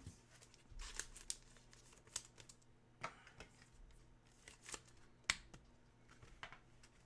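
Hockey trading cards being handled: faint, scattered clicks and rustles of card stock and plastic holders, with one sharper click about five seconds in.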